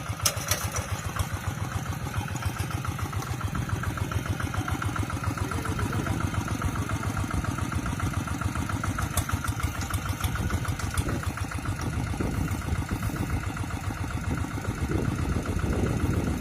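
Kubota RD85 DI single-cylinder diesel engine on a Quick TL800 two-wheel hand tractor running steadily with a fast, even putter, a little louder near the end.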